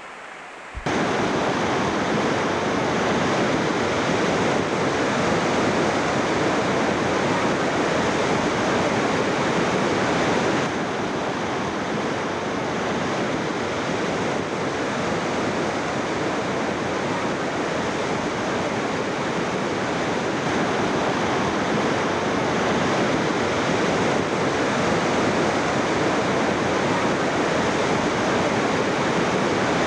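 Mountain torrent in flood, water rushing through a bed of fresh stony debris in a steady, dense noise that dips slightly about ten seconds in.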